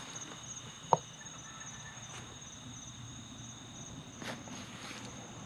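Crickets chirping in a steady, continuous trill, with one sharp click about a second in.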